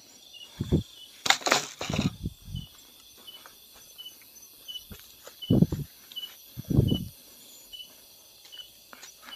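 A night insect chirping steadily, about two short high chirps a second. Over it come several dull thumps and a rustle of movement through brush close to the microphone, the loudest rustle about a second and a half in.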